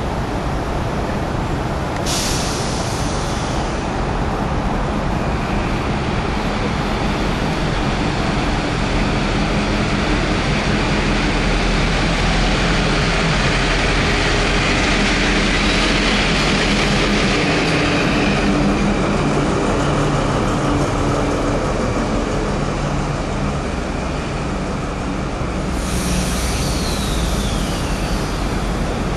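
Metro-North EMD GP35R diesel locomotive running as it rolls slowly past, its engine hum and wheel noise loudest in the middle. Sharp bursts of air hiss come about two seconds in and again near the end.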